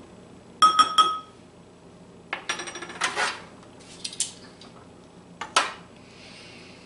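A metal spoon clinks about three times against a glass mixing bowl, with a short ringing tone. A few more clatters of metal kitchen utensils follow as metal tongs are handled and set on a metal baking pan.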